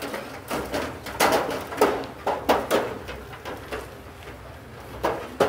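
Sobbing and wailing from a grieving woman, in short, repeated cries of lament.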